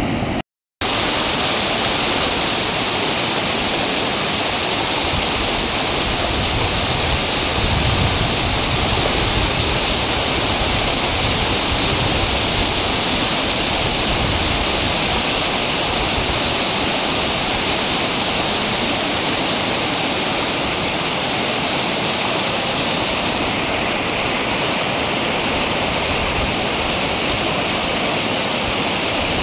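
Fast floodwater rushing across a submerged road, a steady, loud rush of water. The sound cuts out for a moment just after the start.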